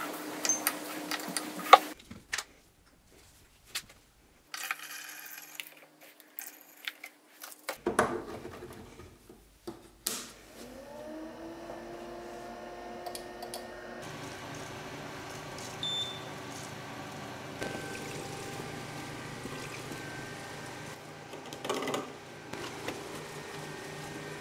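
Water poured into the funnel of the xTool P2 laser's coolant tank, then after a quiet stretch a knock as the machine is powered on. Its water pump and cooling fans spin up, their whine rising and levelling off, then settle into a steady hum of several tones.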